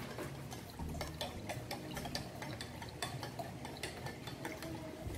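Metal teaspoon stirring honey into juice in a glass pitcher, clinking against the glass in many quick, uneven taps.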